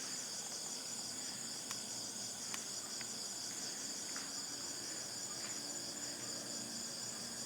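Crickets and other night insects chirring steadily in a high, continuous chorus, with a few faint ticks.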